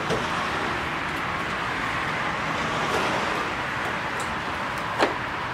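Steady hiss of road traffic, with a small knock at the start and a single sharp click about five seconds in from hand work on the radiator in the engine bay.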